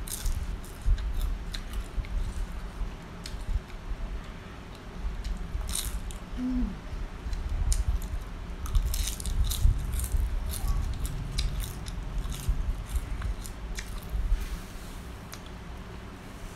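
Close-up chewing and crunching of fried grasshoppers, with irregular crisp crackles that come thickest around the middle.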